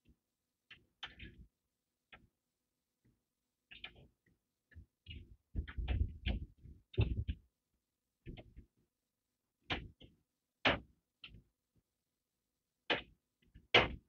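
Irregular plastic clicks, taps and knocks of hands working at a microwave's bulb housing and hinged light cover while pressing a new LED bulb into its socket, with a cluster of heavier knocks about halfway through and a few sharper clicks near the end.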